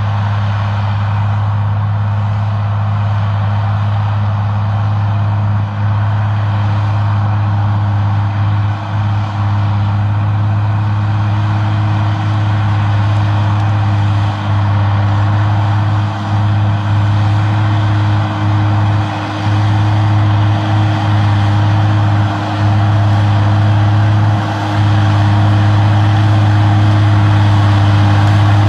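Agrico 4+250 articulated tractor's diesel engine running steadily under load as it pulls a ripper through the field: a deep, even drone with a few brief dips, growing a little louder near the end as the tractor comes closer.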